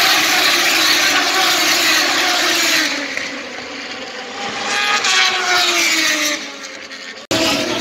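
Moto2 race bikes' Triumph 765 cc three-cylinder engines running hard past the main straight, their pitch falling as they go by. About five seconds in another bike passes, its note rising and then dropping, and the sound fades before cutting off abruptly shortly before the end.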